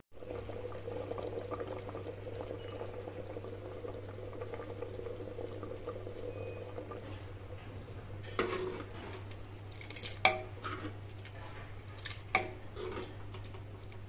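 Chickpea curry (chole) simmering in a steel pot. About eight seconds in, a steel ladle stirs and scoops through it, knocking against the pot in three sharp clinks a couple of seconds apart; the middle one is the loudest. A steady low hum runs underneath.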